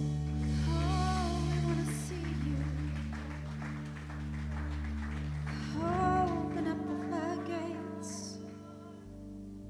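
Church worship music: sustained keyboard chords under a voice singing long held notes, with a chord change about six seconds in. It grows softer near the end.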